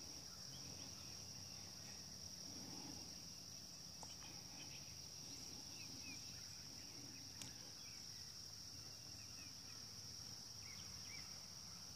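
Crickets chirping in a faint, steady high-pitched chorus.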